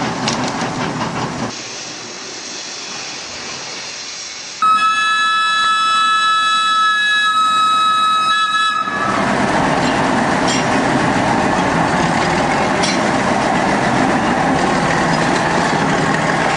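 Narrow-gauge diesel locomotive sounding its horn, one steady chord held for about four seconds, starting about four and a half seconds in. Then its engine runs and its wheels roll as it pulls the coaches past close by.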